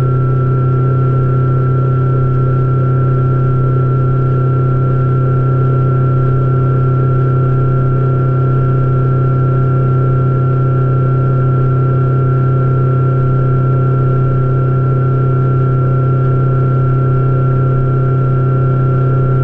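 Outboard motor driving a fishing boat at a steady cruising speed: a loud, even drone with a thin high whine held above it.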